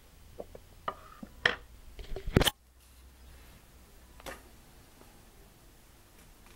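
Handling noise from a spotting scope being moved about on a wooden table: a quick run of knocks and clicks in the first two and a half seconds, then one softer knock about four seconds in.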